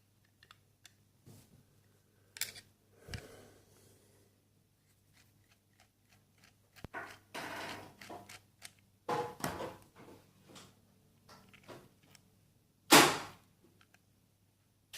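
Small metal parts of a sliding door lock being handled: scattered clicks, taps and brief scraping, with one louder clunk about thirteen seconds in.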